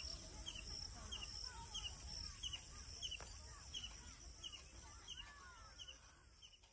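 Rural open-air ambience of birds calling. One bird repeats a short high chirp at an even pace, just under twice a second, over looser, lower calls and a low rumble. The sound fades out near the end.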